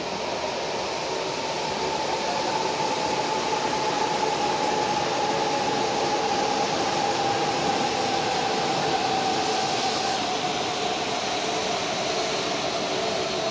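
E4 series double-decker Shinkansen pulling into the platform and slowing, a steady rushing rumble with a whine that slowly falls in pitch as the train decelerates.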